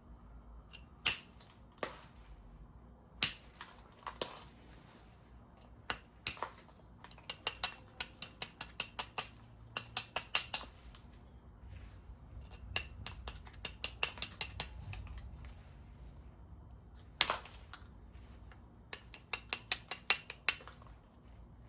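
Flintknapping: percussion strikes on a stone piece, single sharp knocks with a ringing click, alternating with quick runs of light taps about three a second as the edge is worked and platforms are set up.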